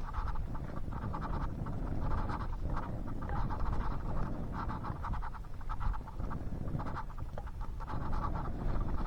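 Repeated scraping of a spoon in a camping pot during a meal, in short strokes every half second or so, over a steady low rumble.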